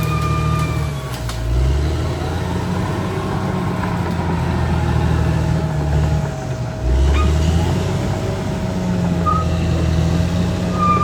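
Caterpillar D6R XL bulldozer's diesel engine running under changing load, its note shifting and growing louder about seven seconds in. A steady high whine fades about half a second in and comes back near the end.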